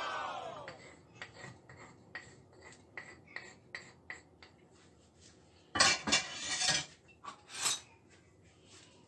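Wooden rolling pin crushing and grinding toasted black sesame seeds on a wooden chopping board: a run of small crackling taps, then louder scraping bursts a little past halfway and again about a second later. A brief falling sweep is heard at the very start.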